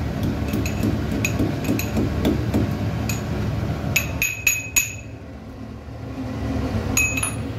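Steel spoon tapping and clinking against a small steel bowl: light metallic taps at first, then a quick cluster of four sharp ringing clinks about four seconds in and two more near the end. Under them is a steady low rushing noise that drops away about four seconds in.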